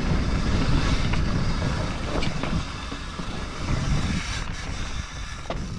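Mountain bike being ridden over rocky dirt, with wind rumbling on the microphone and a rattle that the rider takes for the chain tapping the frame, which has no chain protector fitted.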